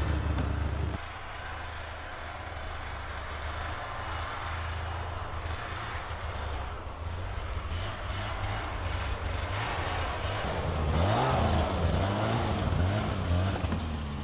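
Snowmobile engine running while riding, with its note rising and falling several times near the end.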